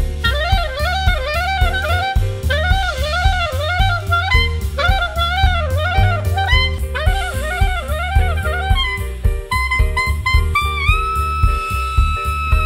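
Instrumental swing jazz: a lead horn plays quick, repeated rising-and-falling runs over a steady drum-kit beat, then settles into a long held note near the end.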